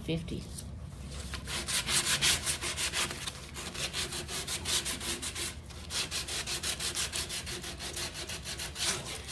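150-grit sandpaper rubbed back and forth by hand over a primed laminate drawer, a quick even scratching of about four to five strokes a second, starting about a second in with a short break a little past halfway.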